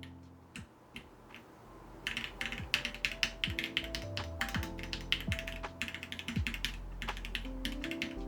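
Key presses on a KBDPad MK II custom mechanical keyboard fitted with Tangerine 62 g linear switches: a few separate clicks at first, then rapid, continuous typing from about two seconds in. Background music plays underneath.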